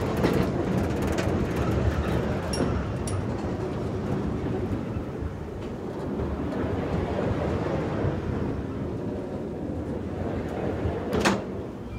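Tilt-A-Whirl ride running with riders aboard: a steady rumble and rattle of the car and ride machinery turning, with one sharp click near the end.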